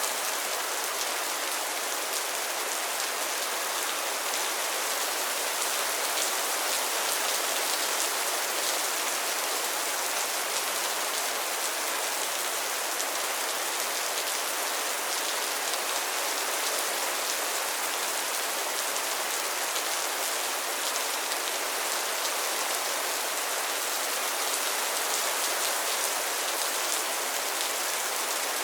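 Steady rain falling on a pond and its lily pads, a dense even patter of many small drops with fine ticks of individual drops hitting the water and leaves.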